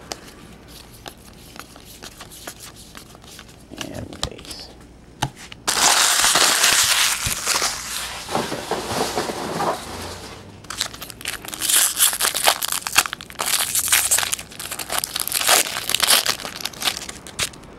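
Foil wrapper of a baseball card pack crinkling and tearing as it is ripped open and crumpled, in two long loud spells starting about six seconds in, after a few seconds of quieter card handling.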